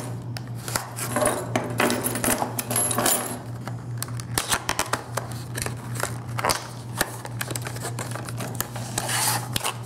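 A paperboard retail box being handled and its end flap pried open: scraping and rustling with a string of small clicks, and keys on a key ring clinking, over a steady low hum.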